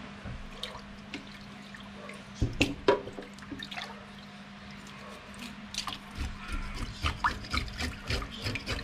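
Tap water running and splashing into a stainless steel sink over whole jack fish, with knocks as a fish is handled about two and a half seconds in. From about six seconds on, a knife scrapes quickly along a fish under the water, scaling it.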